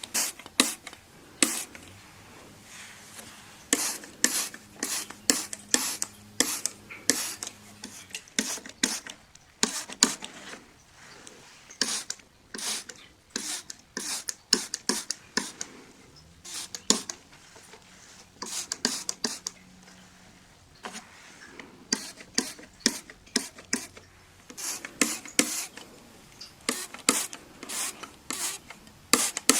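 Window glass being wiped by hand in quick repeated strokes, a few rubbing swipes a second in bursts with short pauses between.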